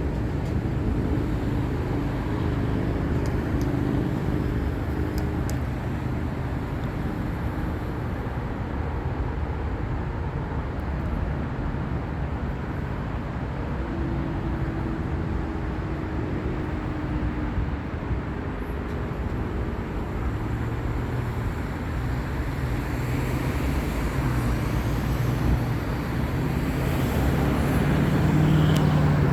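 Steady road traffic: vehicle engines and tyre noise on a busy road, with a vehicle growing louder near the end.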